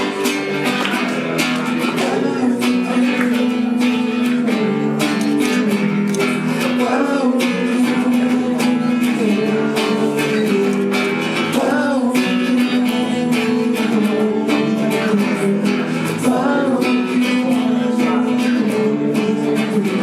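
Live guitar music: strummed chords played steadily through an instrumental passage of a song, with no words sung.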